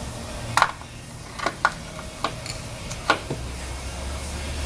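Metallic clicks and knocks as a small-block Chevy distributor is handled and seated in the intake manifold, about five or six sharp taps spread over three seconds.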